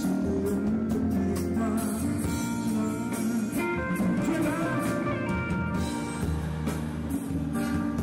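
A live band playing a song on keyboard, electric bass and drums, with a man singing over it.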